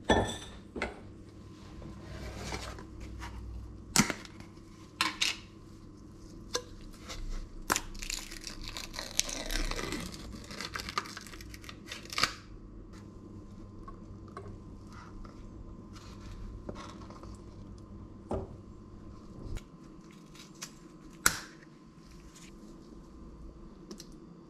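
Food-prep handling sounds: a few sharp knocks and clinks against a stainless steel mixing bowl, and a stretch of crinkling and tearing as a foil cream-cheese wrapper is peeled open.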